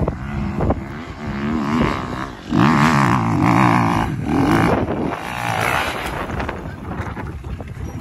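Dirt bike engine revving as the rider climbs a steep dirt trail, its pitch rising and falling with the throttle and loudest from about two and a half seconds in.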